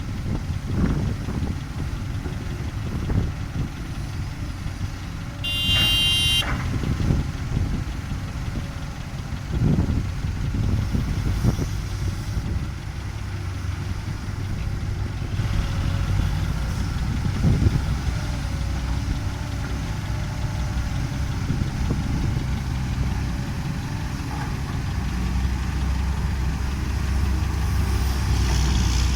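Heavy diesel engines of tracked excavators running steadily, with scattered knocks and a brief high squeal about six seconds in.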